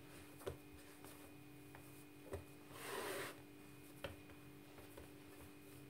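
Hands pressing and flattening crumbly chickpea-flour dough on a bamboo cutting board: a few faint soft taps and a brief rubbing swish about halfway through, over a faint steady hum.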